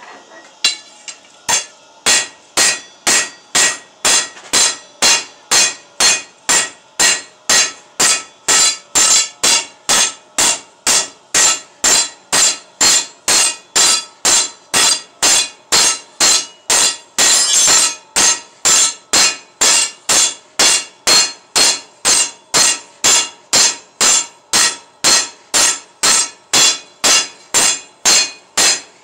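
A hand hammer striking red-hot steel bar on an anvil, a few light taps and then steady blows about two a second, each with a short metallic ring. The hammer's face is grooved, so the blows press a wood-grain texture into the bar.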